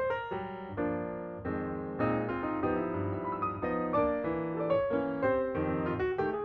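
Background piano music: a light melody over sustained chords.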